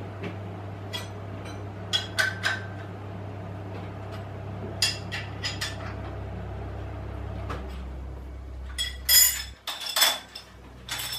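Metal clinks and knocks of a spanner working the nuts and studs of the strap clamps on a milling machine table, loosening the hold-downs, in scattered clusters that grow louder near the end. Under them a steady low machine hum changes about seven and a half seconds in and cuts out at about nine and a half seconds.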